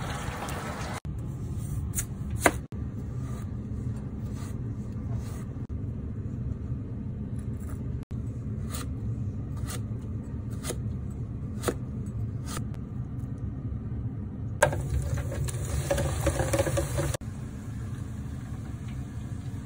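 Chef's knife slicing a raw potato on a cutting board, a sharp tap at each stroke about once a second, over a steady low hum.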